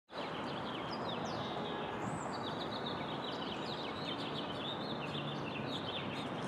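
Outdoor ambience: a steady background noise with many small birds chirping throughout.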